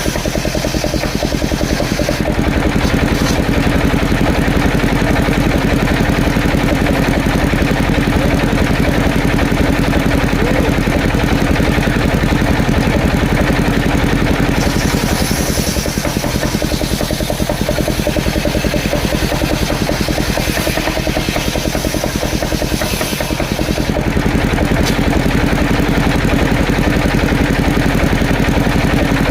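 An engine running steadily at an even speed, with a fast regular firing beat.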